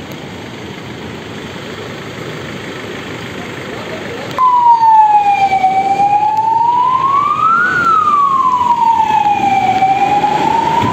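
Steady background rumble, then about four seconds in an emergency vehicle siren starts, wailing slowly up and down in long rising and falling sweeps.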